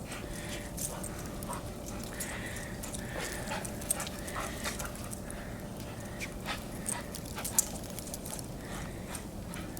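Dogs moving about in fresh snow, with small dog sounds and scattered light clicks over a steady low outdoor hiss.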